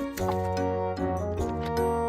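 Background music with a bass line and notes that change about every half second.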